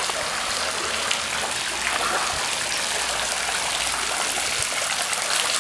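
Water spraying steadily from a hose into a swimming pool, an even splashing and trickling.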